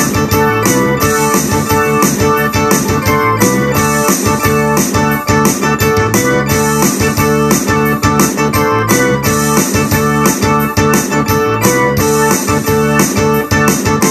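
Ensoniq SD-1 synthesizer keyboard played with both hands in a fast, rhythmic rock part, chords and notes struck in quick succession.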